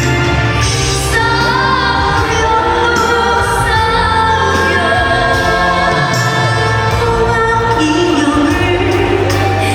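A woman singing a Korean trot song live over instrumental accompaniment, with a steady bass line under the melody.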